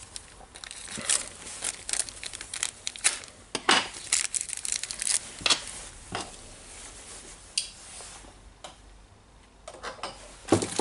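Crinkling of a clear plastic bearing wrapper as gloved hands open it and take out a small ball bearing, with light clicks of metal parts set down on the wooden bench. The crinkling is thickest in the first half and thins out toward the end.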